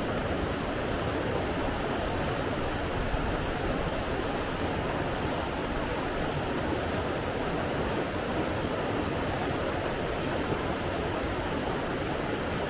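Flowing water rushing steadily, an even unbroken hiss with no swells or pauses.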